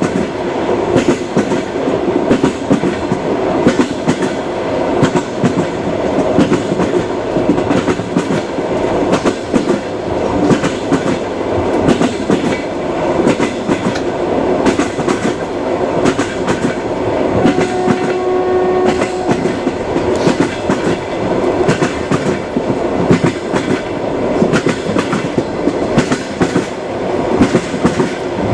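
Train wheels clattering over rail joints as the railway carriage rolls along, with a continuous rumble and frequent clicks and knocks. About two-thirds of the way through, a brief steady tone sounds for about two seconds.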